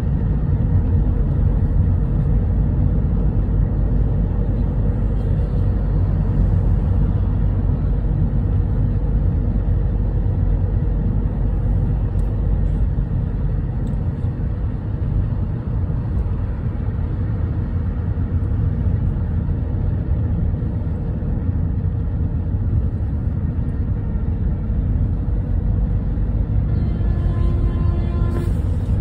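Steady low rumble of a car driving along a road, heard from inside the cabin, with tyre and engine noise blended together.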